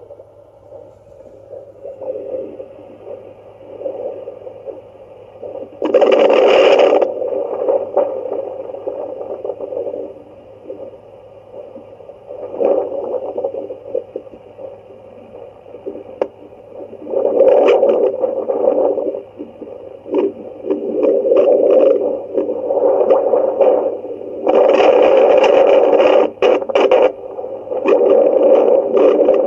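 Handheld fetal Doppler's loudspeaker giving out irregular swishing, scraping bursts of static over a steady low hum. The loudest bursts come about six seconds in and again near the end.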